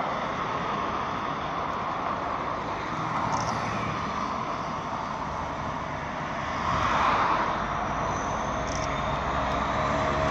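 Class 66 diesel freight locomotive approaching at low speed, its two-stroke V12 engine a steady distant rumble whose low engine note grows clearer in the last few seconds.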